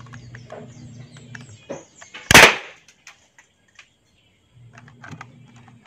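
One shot from a homemade PVC toy gun fired by burning denatured-alcohol vapour: a single sharp bang about two seconds in, dying away within half a second. A low steady hum runs underneath before and after the shot.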